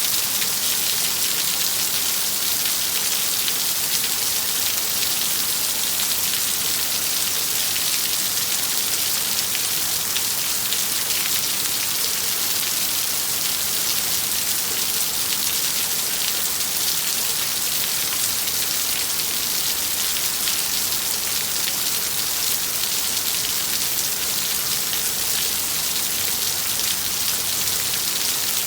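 Heavy rain falling steadily, a dense hiss of drops striking surfaces.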